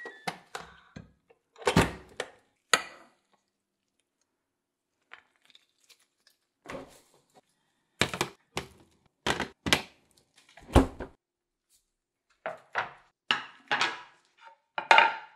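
Kitchen handling noises: scattered short knocks, clatters and thuds in several clusters, with a quiet stretch of a couple of seconds between them. Around the middle, food containers are shuffled in a packed freezer, and near the end wooden cutting boards are knocked down onto a stone countertop.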